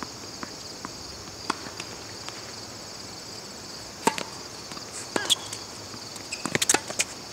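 Tennis ball bounced a few times on a hard court, then a racket striking the serve about four seconds in and the return coming back a second later, with a quick run of sharp knocks near the end. A steady high chirring of insects runs underneath.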